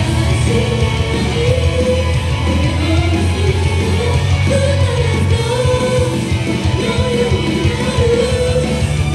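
Idol-group pop song: singing over a loud backing track with heavy bass.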